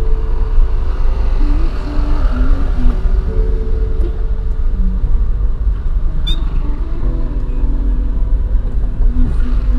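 Stock 2013 Daihatsu Xenia VVT-i running, a loud steady low rumble of engine and road noise, with short steady tones shifting in pitch over it.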